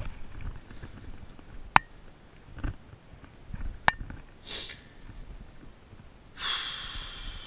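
Two sharp clicks about two seconds apart as the paramotor harness buckle and brake handles are handled, with soft rustling between. Near the end there is a hiss lasting about a second.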